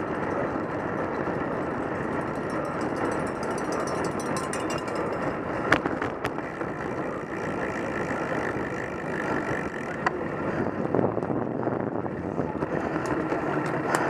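Steady rush of wind and tyre noise from a road bike being ridden, picked up by a camera mounted on the bike, with a few sharp clicks around the middle.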